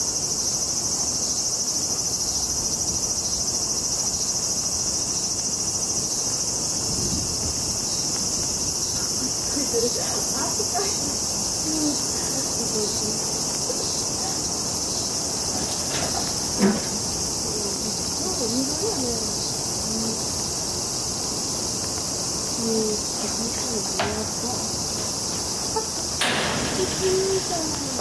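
Steady high-pitched drone of a summer insect chorus, with a few sharp knocks in the second half.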